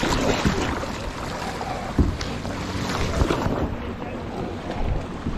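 Canoe paddle strokes splashing and pulling through the water, with sharp knocks or splashes every second or so, over wind on the microphone.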